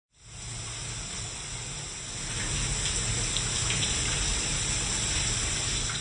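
Steady rush of running water, like a tap running into a sink, growing a little louder about two seconds in.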